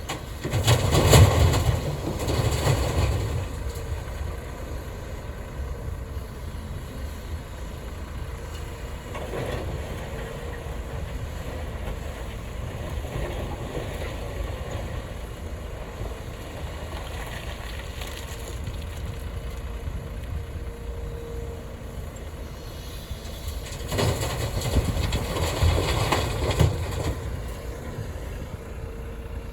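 CAT 330F excavator's diesel engine running steadily, with two loud spells of gravel pouring into a dump truck's bed: about a second in, and again near the end, each lasting two to three seconds.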